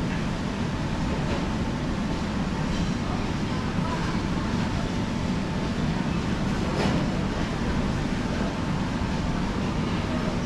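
Steady low rumbling background noise, even throughout, with faint voices in it.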